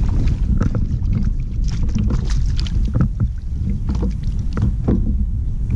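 Wind buffeting the camera microphone as a heavy low rumble, with scattered clicks and knocks of fishing gear and a landing net being handled on a plastic fishing kayak.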